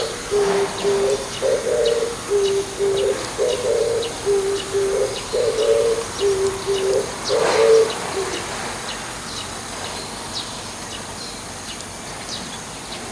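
Oriental turtle dove cooing its low song in repeated phrases, which stop about eight seconds in. Faint high chirps of other small birds continue throughout.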